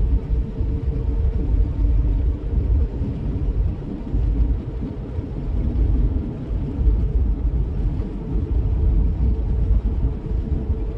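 Vehicle driving: a steady, low road rumble of tyres and engine that wavers in loudness.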